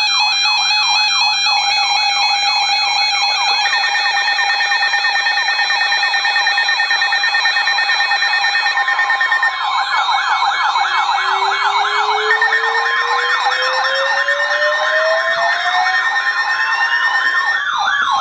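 Several electronic sirens sounding at once. A fast warbling yelp runs under steady held tones, and about ten seconds in a slow wail starts rising in pitch.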